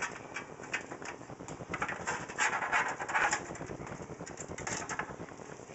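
PC power-supply cables being pulled and pushed through a case's rear cable-management panel: irregular scraping, rustling and light clicks, with a longer scrape about two and a half seconds in.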